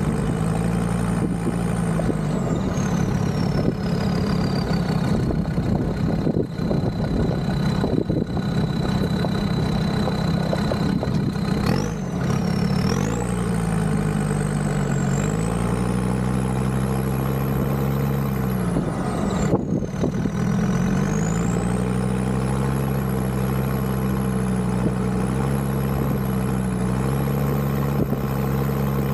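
Land Rover Discovery 2's TD5 five-cylinder diesel engine running while driving, its note dropping and climbing back several times, about twelve, fifteen and twenty seconds in. A thin high whine rides over it, sinking low and steady for a while, then rising and falling.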